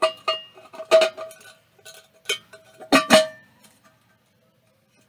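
Enamelware coffee pot and its lid clinking and knocking as they are handled, a string of sharp clinks each with a short bell-like ring, the loudest about three seconds in.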